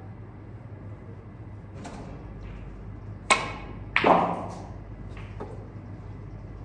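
Snooker cue tip striking the cue ball with a sharp click about three seconds in. Under a second later comes a louder knock with a short ring as the ball hits on the table, over a steady low hum.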